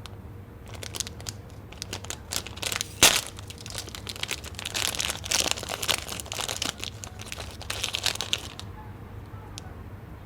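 Plastic snack packaging crinkling and crackling as it is handled, with a sharp crackle about three seconds in; it dies away a little before the end.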